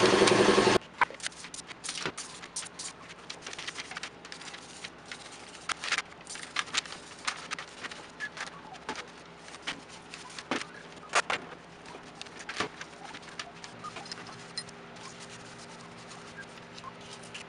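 A loud hiss that cuts off about a second in, then scattered light clicks, taps and clinks of metal electric-motor parts being handled, as the rotor and its brush-holder pieces are worked apart by hand, over a faint steady hum.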